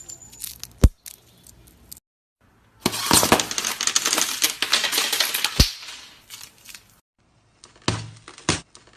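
Slime being squeezed and poked, its trapped air bubbles popping in dense crackling clicks for a few seconds, then a few separate louder pops near the end, with short dead gaps where the clips are cut.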